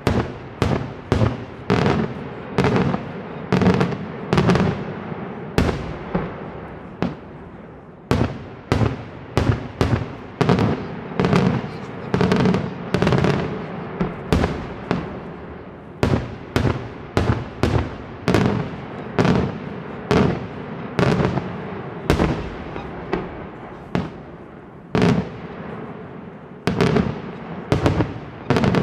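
Daytime fireworks display: a rapid, uneven string of loud aerial shell bangs, about two a second, each followed by an echoing tail, over a continuous rumble of further bursts.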